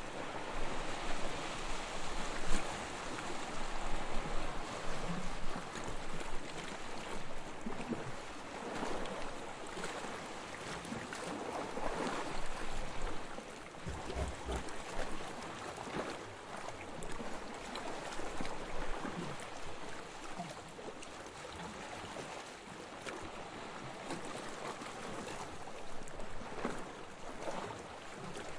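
Gentle waves washing onto a beach: a continuous hiss of water that swells and eases every few seconds as small waves break and run up the sand.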